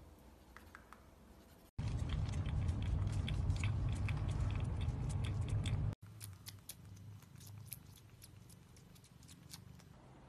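A caracat biting and chewing, with quick sharp clicks of its teeth. A louder stretch with a deep rumble and dense clicking starts and stops abruptly, from about two to six seconds in.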